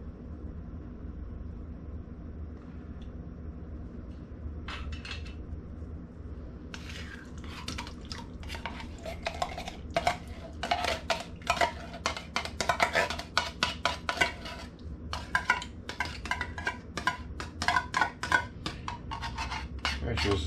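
A spoon scraping and clinking inside a tin can, rapid repeated strokes, as canned SpaghettiOs with meatballs are scooped into a stainless steel saucepan. The scraping starts about seven seconds in, after a stretch of only a low hum.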